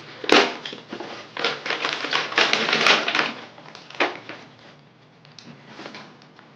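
Packaging of an RC car being handled as it is unboxed: rustling and crinkling with a few sharp clicks, busiest in the first three seconds and quieter near the end.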